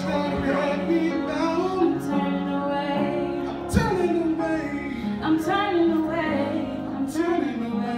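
A woman singing into a microphone over a steady held accompaniment, with a single thump about halfway through.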